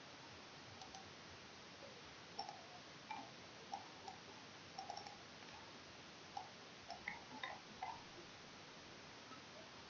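Computer mouse clicking: about a dozen short, irregular clicks between about two and eight seconds in, over a faint steady hiss.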